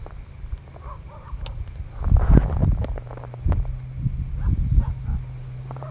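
Low wind rumble on the microphone, with scattered knocks and rustles as a wet gillnet is hauled by hand out of a hole in the ice.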